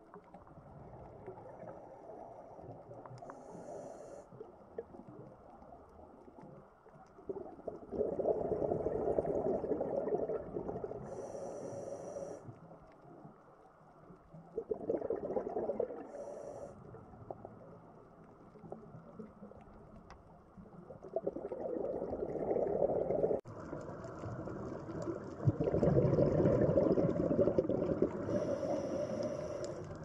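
Underwater recording of a scuba diver breathing through a regulator: short high hisses on the inhales and several rushes of rumbling exhaust bubbles lasting a few seconds each, the loudest near the end.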